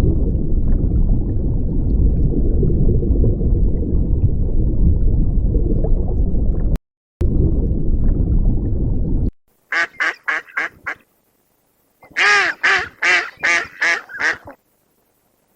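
Two quick runs of duck quacks, about six short calls each, in the second half. Before them comes a steady low rumbling noise with no clear pitch, cut off briefly about seven seconds in.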